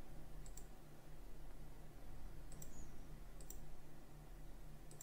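A few faint computer mouse clicks: a pair about half a second in and a few more around the three-second mark, over a low steady hum.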